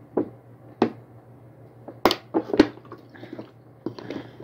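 Gulps of water swallowed from a plastic bottle, then a few sharp clicks and crackles from the plastic bottle as it is lowered and its cap handled.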